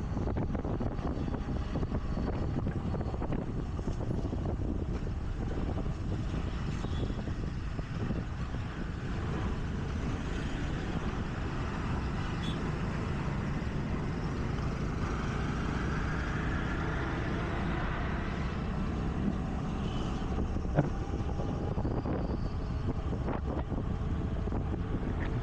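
A scooter riding through city traffic: steady engine and road rumble with wind on the microphone and passing traffic. A faint pitched whine rises and falls in the middle, and there is one sharp click a little after twenty seconds in.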